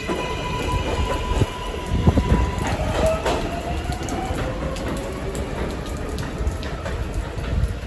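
An R188 subway train pulling out of an elevated station and moving away: a steady electric whine stops about three seconds in, then a fainter tone slides downward, over the rumble and clatter of steel wheels on the elevated track.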